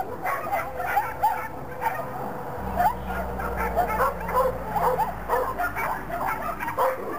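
Dog barking and yipping, short high barks in quick succession.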